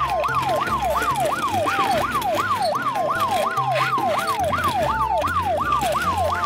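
Siren sound effect for a toy fire truck, a fast yelp whose pitch sweeps up and down about three times a second, over background music with a bass line.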